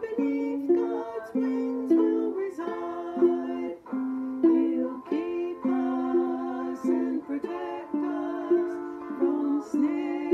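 A woman singing, holding long notes, while strumming chords on a ukulele.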